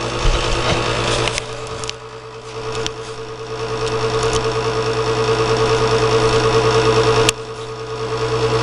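Gas furnace inducer (draft inducer) motor running with a steady hum. It is the first thing to come on when the furnace gets a call for heat. A few low bumps are heard in the first second.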